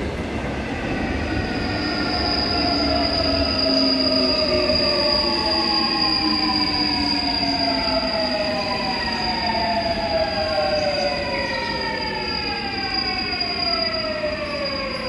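Seoul Subway Line 8 electric train pulling into the station and braking. Its inverter-driven traction motors whine in several tones that fall steadily in pitch as it slows, over a rumble of wheels on rail, with a steady high-pitched tone running alongside.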